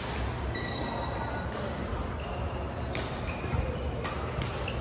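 Badminton play on a wooden sports-hall floor: a scatter of sharp racket-on-shuttlecock hits and short high squeaks of court shoes, against a low hum of voices in the hall.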